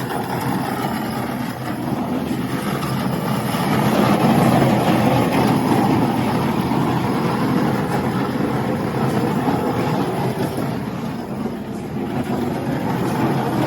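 A vehicle engine running steadily, a continuous low rumble with no sharp knocks.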